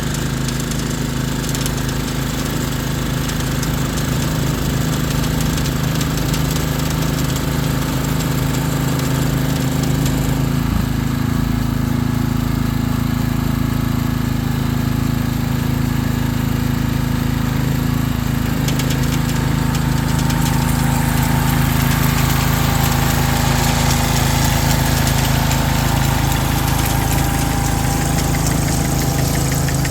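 Ryan GreensAire walk-behind core aerator's small gasoline engine running steadily as the machine works across the lawn, getting slightly louder about two-thirds of the way in.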